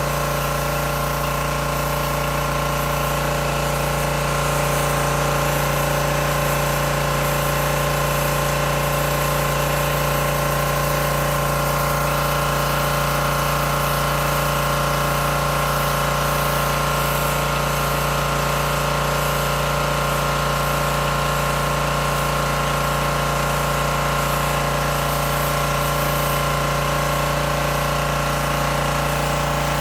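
Teande 7-horsepower gas pressure washer running steadily, its engine drone mixed with the hiss of the high-pressure water spray.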